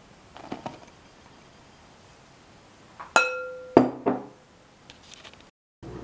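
A clear glass mixing bowl is knocked and rings once, its tone fading over about half a second, followed by two duller knocks. There are soft rustles of poured flour near the start.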